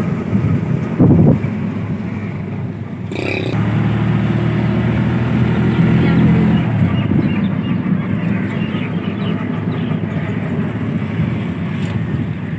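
Auto-rickshaw engine running, heard from inside the open cabin while riding, a steady low hum whose pitch shifts around six to seven seconds in. A loud thump about a second in, and a brief noisy burst around three seconds.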